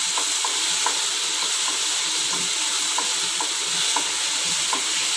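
Chopped onions and ginger-garlic paste sizzling in hot oil in a nonstick pan while being stirred with a wooden spatula: a steady frying hiss with small irregular ticks, the sauté that cooks off the paste's raw smell.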